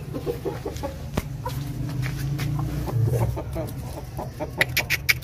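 Aseel chickens clucking in short calls over a steady low hum, with a fast run of sharp clicks near the end.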